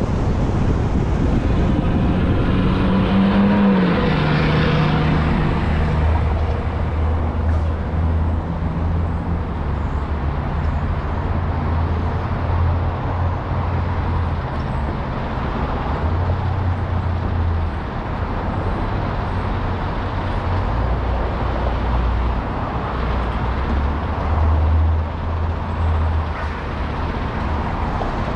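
Honda Odyssey minivan driving in city traffic, heard from its roof: a steady rush of road and wind noise over a low drone that steps up and down in pitch. A falling tone a few seconds in.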